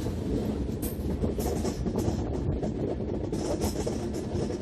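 Indian Railways passenger train running at speed, heard from an open coach door: a steady rumble of wheels on the track, with a few brief bursts of hiss.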